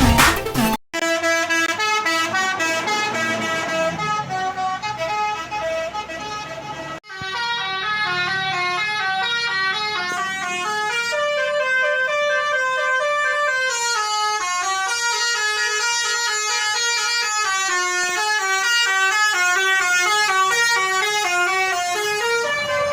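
A bus's multi-trumpet telolet horn playing a melody in quick stepped notes, with two brief breaks, about a second in and about seven seconds in.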